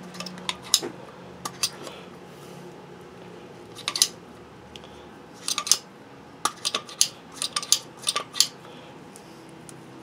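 Sharp clicks and clinks of a disassembled Ford F-250 automatic locking hub's metal and plastic parts being worked by hand, scattered at first and coming in a quick run over the last few seconds.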